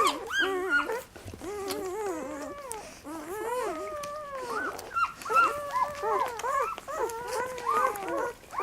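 Several German Shepherd puppies whimpering and squealing at once while they nurse, many overlapping high calls that rise and fall without a break.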